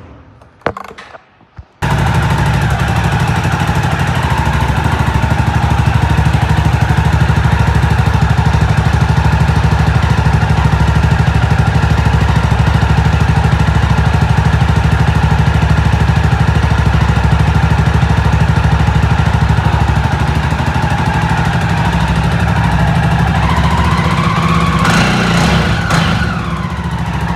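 Jawa Classic motorcycle's 293 cc liquid-cooled single-cylinder engine, heard through its stock twin exhausts. After a few clicks it comes in abruptly about two seconds in and idles steadily, with a brief rise and fall in revs near the end.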